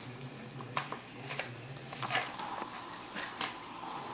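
Small plastic caps and a plastic tub clicking and tapping on a tile floor as a baby handles them, about seven light knocks spread irregularly, over a low steady hum.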